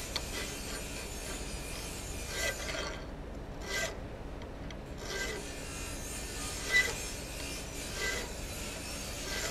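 Hand file rasping across the bevel of an unhardened 4142 steel hot-cut chisel held in a vise: slow, separate strokes, about five of them, roughly one every second and a half, fairly quiet.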